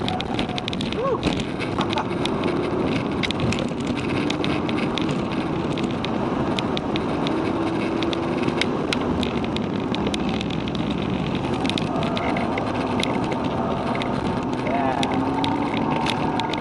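Mk6 Volkswagen Golf GTI's turbocharged 2.0-litre four-cylinder heard from inside the cabin at track speed, its note rising and falling under a steady rush of road and wind noise. Frequent small clicks and rattles run through it.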